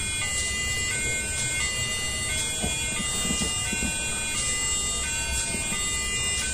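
Electronic railway level-crossing warning alarm from a model Indonesian crossing, a steady two-tone pattern alternating about twice a second.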